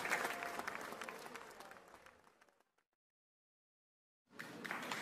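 Applause of many hands clapping, fading out over about two and a half seconds into dead silence; a similar noisy sound comes back in just before the end.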